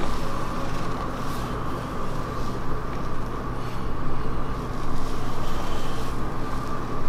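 A steady mechanical hum carrying a faint high tone, with a few soft handling rustles.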